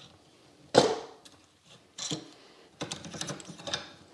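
Metal clicks from a muzzle brake being broken loose and unscrewed from a rifle barrel: one sharp knock about a second in, then a lighter click and a quick run of small metallic clicks near the end.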